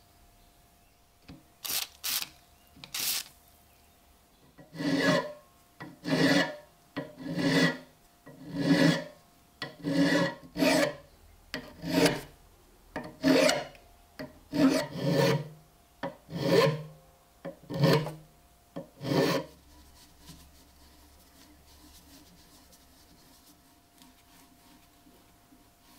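A steel hand file rasping across the threaded stud on top of a metal axe head. There are three quick strokes first, then about a dozen slower strokes a little more than a second apart, and then the filing stops.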